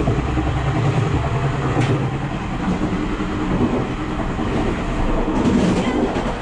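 Taiwan Railways passenger train running along the track: a steady rumble with faint rail clicks about two seconds in and again near the end.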